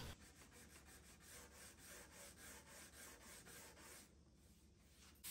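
Faint hand sanding of a wood surface with sandpaper on a small contour sanding block, quick regular back-and-forth strokes.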